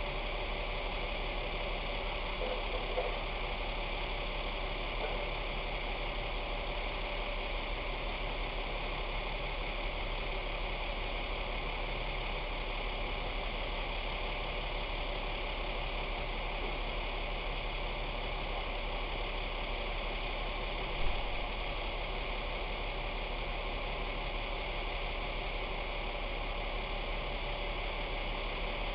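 Utility truck's engine idling steadily at the curb, a constant low hum under a hiss. One short knock comes about two-thirds of the way through.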